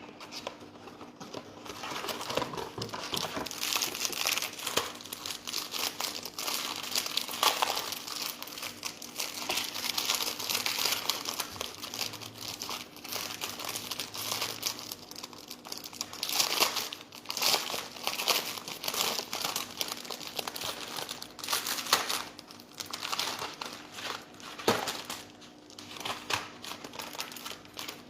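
Crinkling and rustling of a plastic or paper wrapper being handled, in irregular crackling spells, louder at times, with some tearing.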